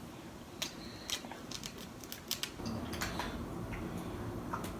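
Snow crab leg shells cracking and being picked apart by hand: a scattered series of short sharp clicks and snaps.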